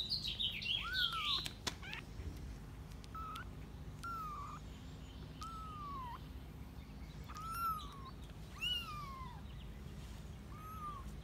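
Young kitten mewing repeatedly: about seven thin, high mews, each rising and falling, spaced a second or so apart. Higher chirps in the first second and a half sound like birds.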